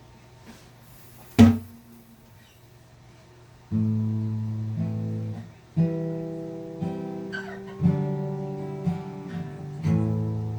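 A single sharp knock about a second and a half in, then acoustic guitar chords strummed about once a second and left to ring: the opening of the song.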